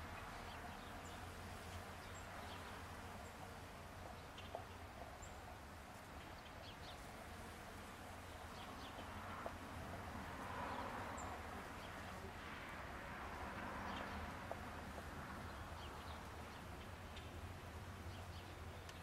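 Faint buzzing of honey bees working cherry blossoms, with short bird chirps now and then over a low steady hum.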